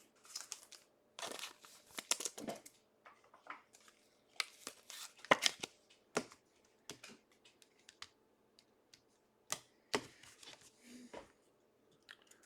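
Trading-card pack wrappers and cards being handled and torn open at close range: scattered short crinkles, rustles and clicks, with a few sharper tears.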